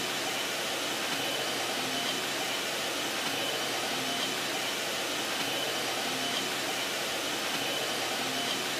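Steady hiss of background noise in an industrial hall, with a faint thin high whine running through it.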